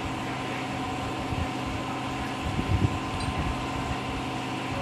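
Steady mechanical hum of a fan or air conditioner running in the room, even and unchanging.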